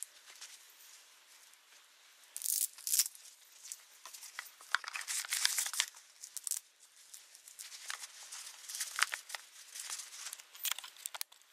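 Rustling and crinkling of a knitted fabric dog toy being handled and squeezed, in irregular bursts, loudest about two and a half seconds in and again around five to six seconds in.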